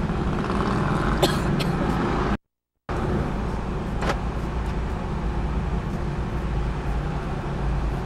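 Steady low rumble of a car's engine and traffic, heard from inside the car's cabin, with a couple of faint clicks. The sound cuts out completely for about half a second, about two and a half seconds in.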